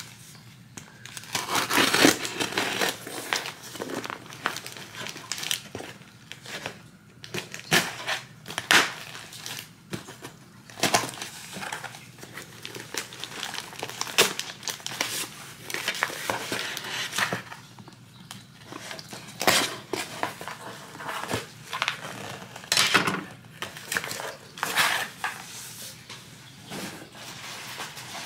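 Hands opening a mail-order box and rummaging through its packaging: irregular crinkling, tearing and scraping, with sharp knocks here and there.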